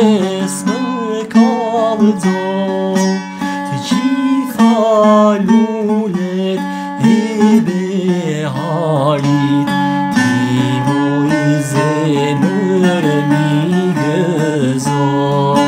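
A man singing a Tirana folk song in Albanian, his voice wavering through ornamented notes, while he strums a long-necked lute.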